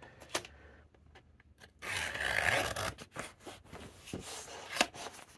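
A hobby knife slitting packing tape on a cardboard mailer: a zipper-like scrape lasting about a second, then short scrapes and clicks as the box is handled.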